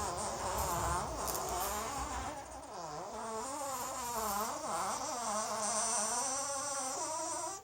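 Two 10 cm steel ball bearings and a neodymium cylinder magnet vibrating against each other, making a fart-like buzz whose pitch wobbles up and down. It cuts off suddenly at the end.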